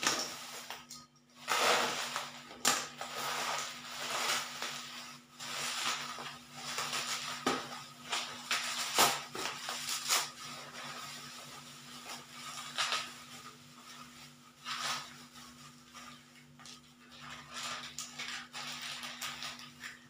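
Bubble wrap and plastic packaging rustling and crinkling in irregular handfuls, with a few sharp crackles, as a parcel is unwrapped by hand, over a faint steady low hum.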